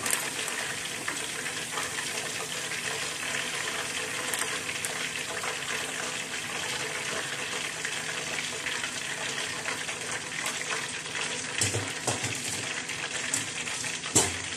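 Hot oil sizzling and crackling steadily around a whole pork knuckle being deep-fried for crispy pata and lifted out of the pot. A few sharp knocks sound near the end.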